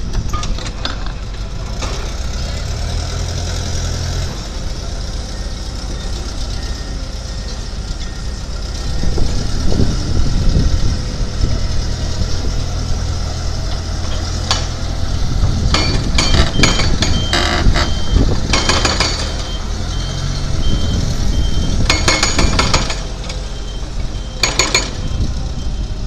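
Heavy diesel forklift engine running and working harder twice as it shifts a refrigerated shipping container, with clusters of metallic clanks and knocks in the second half. A steady reversing beep sounds from about two-thirds of the way through.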